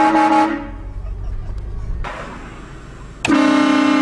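Car-mounted Hornblasters train horn sounding its multi-note chord. A short blast at the start fades away, then a second loud blast of about a second comes near the end.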